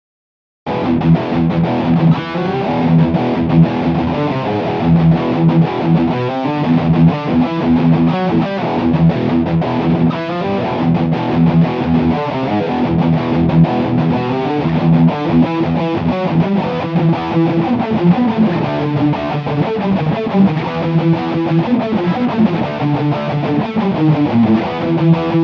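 Heavily distorted electric guitar playing a heavy metal riff. It starts abruptly just under a second in, after a moment of silence.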